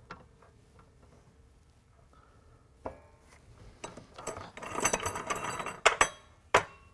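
A solid stainless steel bar being slid into place in a chop saw's steel vise: metal scraping and clinking on metal, with a knock about three seconds in and sharp clinks near the end.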